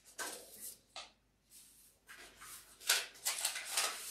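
Sheets of paper rustling as they are handled and shuffled, in several short bursts that are loudest near the end.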